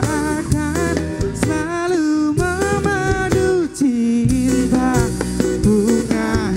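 Live band performing a song: a male singer's melody with sliding, wavering notes over guitars, bass guitar and drums.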